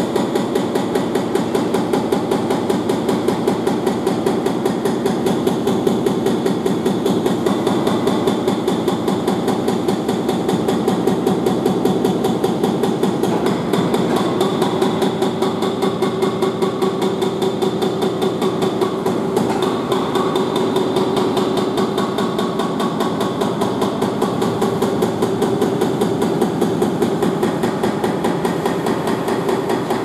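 Hydraulic breaker on an Atlas wheeled excavator hammering into a brick wall, its blows coming in a fast, even rhythm without a break.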